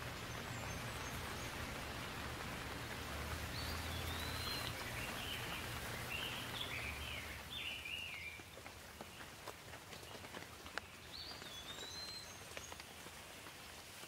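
Steady rain falling, with separate drops ticking more clearly as it eases after about eight seconds. A bird gives a string of short chirps a few seconds in and again near the end.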